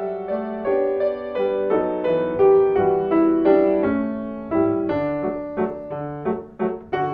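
Background music: the piano accompaniment of a song, a gentle tune of held notes that turn shorter and more detached from about five seconds in.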